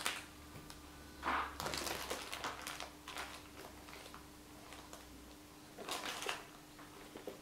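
A few brief rustles and scuffs as a pair of leather sneakers is handled and turned over in the hands, with a crinkle of plastic wrapping.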